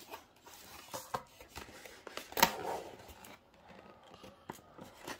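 Cardboard and paper packaging being handled: faint rustling and scraping with scattered light taps, and one sharp click about two and a half seconds in.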